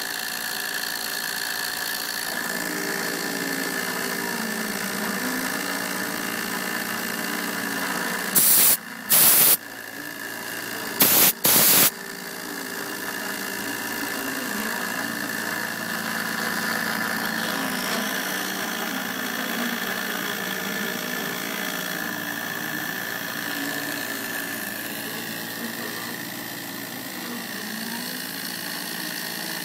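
CNC router engraving plastic: the spindle runs with a steady high tone, while the stepper motors whine in pitches that glide up and down as the axes trace the lettering. About a third of the way in, four short, loud bursts of noise cut across it.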